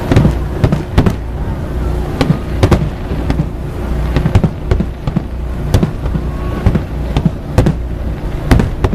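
Aerial firework shells bursting in quick succession: sharp bangs roughly once a second, each with a short echo, over a continuous low rumble.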